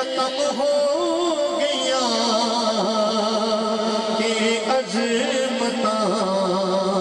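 A man sings a Punjabi naat, a devotional poem in praise of the Prophet, into a microphone, his voice amplified through a sound system. The singing is melismatic, with long held notes that bend in pitch.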